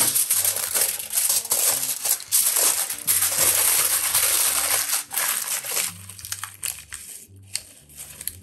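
Aluminium foil crinkling and crumpling as it is folded and wrapped around a cooked steak. It is loud for about the first six seconds, then fainter, scattered crinkles follow.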